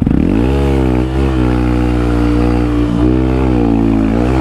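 Honda Grom's 125 cc single-cylinder four-stroke engine held at high revs under load while climbing a steep sand hill. Its pitch dips slightly a few times.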